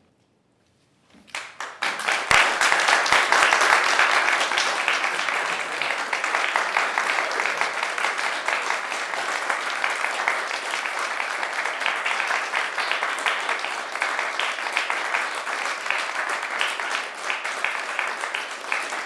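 Audience applause: after a brief silence, scattered claps start about a second and a half in and swell quickly into dense, steady clapping from many hands, loudest in the first few seconds.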